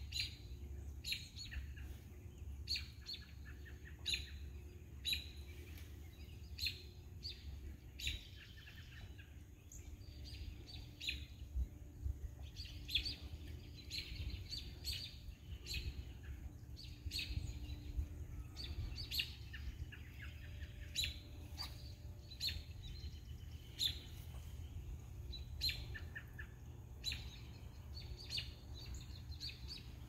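Birds chirping in bare trees: short, high chirps repeating about once a second or faster throughout, over a low steady rumble.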